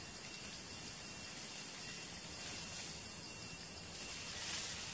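Steady high-pitched drone of a forest insect chorus, with no break or change.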